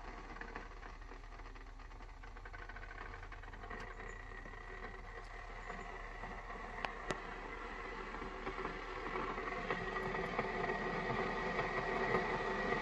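Keurig coffee maker heating its water after being switched on: a steady hum and hiss that grows louder in the last few seconds, with two sharp clicks about seven seconds in.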